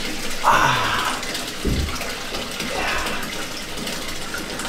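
Hot water running from the tap into a bathtub as it fills, with a steady rush. About half a second in there is a louder surge of water sound, and a low thump comes near two seconds.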